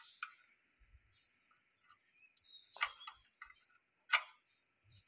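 A few sharp metal clicks and scrapes as a tool pries at the parking brake cable's retaining clip, the loudest two near the middle and near the end.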